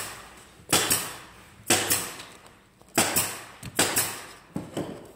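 A run of sharp knocks, about one a second, five in all, each ringing briefly and dying away, from wooden beehive frames being assembled.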